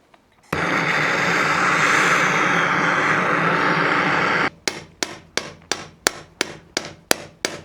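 A steady loud rushing noise for about four seconds, then a rapid run of hammer blows on metal, about five a second, knocking old parts out of a Suzuki RG Wolf 125 two-stroke engine case.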